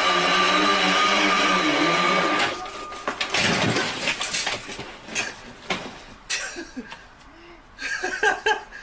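Indoor bicycle trainer whirring steadily under a pedalled mountain bike, cutting off about two and a half seconds in. A clatter of knocks and thumps follows as the bike and rider crash to the floor, with a short burst of voice near the end.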